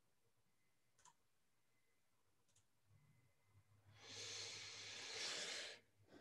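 A person breathing out in one long sigh into a close microphone, lasting nearly two seconds and ending abruptly, after a single faint click; otherwise near silence.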